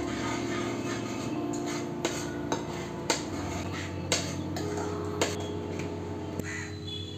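A steel ladle clinking against the side of a steel pot while stirring thick porridge: about half a dozen sharp, irregular clinks from about two seconds in. Background music plays throughout.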